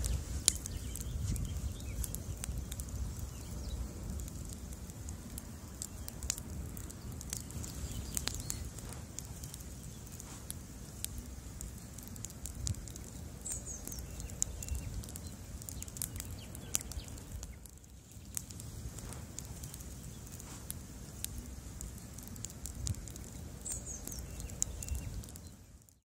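Bonfire of wooden planks burning: a steady low rumble of flame with frequent sharp crackles and pops from the wood, fading out at the very end.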